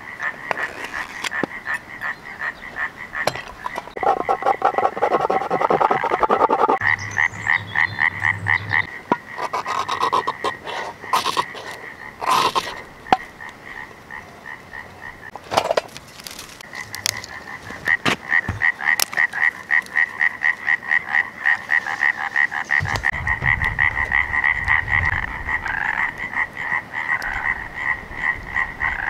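A chorus of frogs calling in fast pulsed trills throughout. About halfway through, a few sharp scrapes of a ferro rod throwing sparks cut in.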